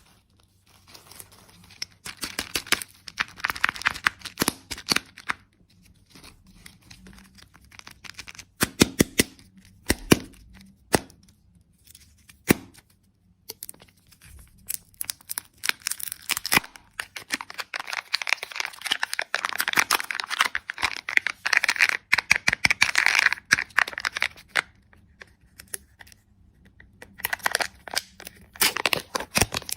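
Candy packaging being torn open and crinkled close to the microphone, in several bursts of dense crackling, the longest and loudest in the second half.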